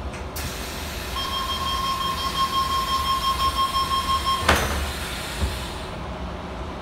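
Tangara train door-closing warning, a steady high electronic tone for about three seconds over a hiss. It ends as the sliding doors shut with a knock about four and a half seconds in, followed by a smaller knock.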